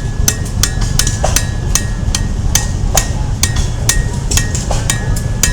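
Blacksmith's hammer striking metal on an anvil in a quick, slightly uneven rhythm of about four blows a second, many blows leaving a brief high ring. A steady low rumble runs underneath.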